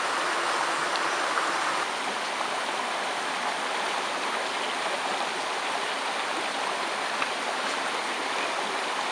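Stream running over rocks, a steady rushing of water.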